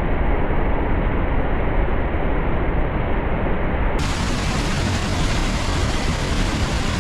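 Steady, loud rushing noise, strongest in the low end, that turns brighter and hissier about four seconds in.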